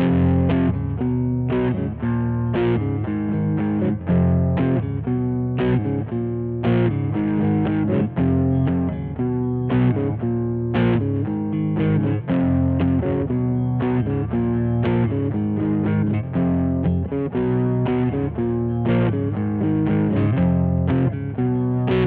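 Squier Vintage Modified Jaguar electric guitar played through an amplifier: picked chords and notes with a steady run of attacks, the strokes coming every half second or so.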